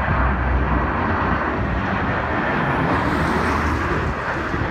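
Airbus A321 jet airliner on final approach passing low overhead with its landing gear down: a steady jet engine rumble and rush of air, turning brighter and hissier from about three seconds in as it comes closer.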